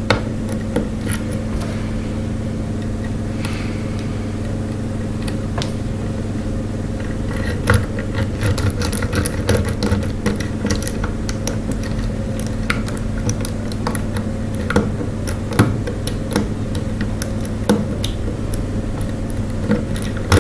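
Lock pick clicking and scraping against the pins of a brass padlock under a tension wrench: short light ticks, sparse at first and more frequent in the second half. A steady low hum runs underneath.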